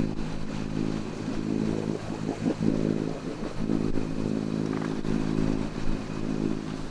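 A sailboat's inboard engine running steadily under way, giving a low, even drone.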